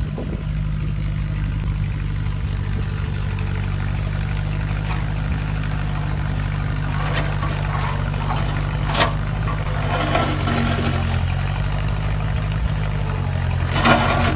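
Tractor engine running steadily under load, with occasional clanks and knocks as it works.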